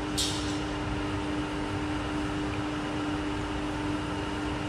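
Steady machinery hum over a low hiss, holding several unchanging tones. A short, sharp hiss sounds just after the start.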